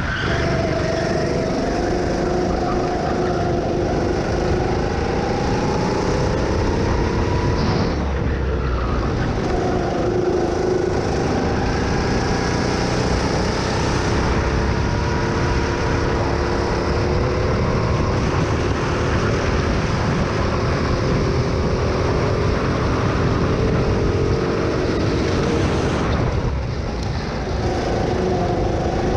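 Onboard sound of a Dino Kart go-kart engine running at racing pace. Its pitch climbs as the kart speeds up and drops briefly about eight seconds in and again near the end as it slows for corners.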